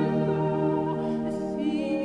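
Background music: sustained keyboard-like chords with a sung line held with vibrato.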